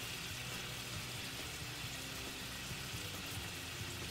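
Steady hiss and faint bubbling of a pasta-water and butter sauce with broccoli simmering in a skillet on the stove.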